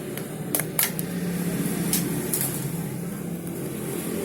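A few light clicks and taps from the plastic housing of an electric hair clipper being taken apart, mostly in the first half, over a steady low hum.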